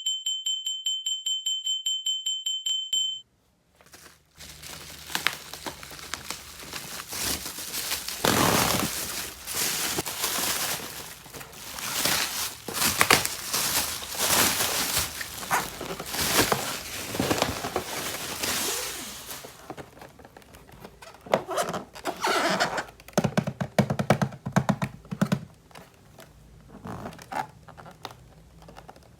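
Plastic toy packaging being handled and opened: crinkling, tearing, scraping and clicking of plastic, with knocks as pieces are set down. It opens with a rapid run of electronic beeps, about five a second, that stops about three seconds in.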